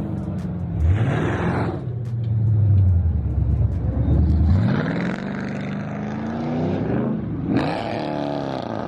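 Car engines revving hard, several times over, rising and falling in pitch, with a stretch of steady low running in the middle. These are performance cars being driven for burnouts or donuts with traction control still on.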